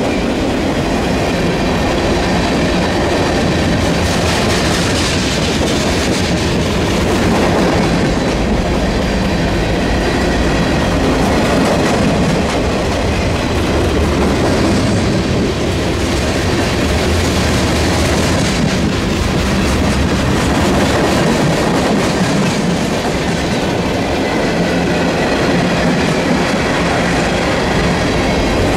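Freight train cars rolling past, a loud, steady rumble of steel wheels on the rails.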